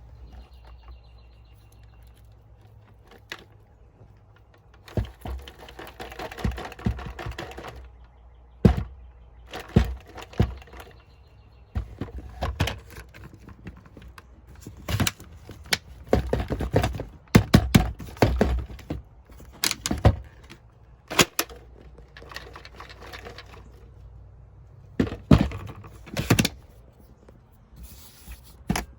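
Irregular knocks, clunks and scraping rustles come in bursts a second or two long over a low steady hum. They sound like things being handled and moved around inside a car.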